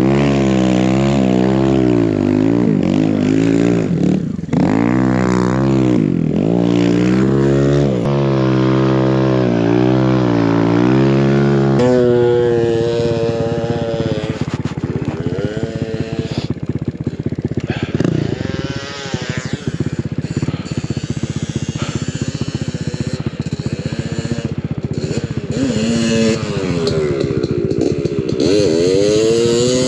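Single-cylinder four-stroke engine of a big-bore Kawasaki KLX170RF dirt bike revving up and down hard as it ploughs through deep snow, heard from the rider's seat. About twelve seconds in, the sound cuts to another dirt bike heard from beside the trail, its engine rising in pitch near the end as it comes through the powder.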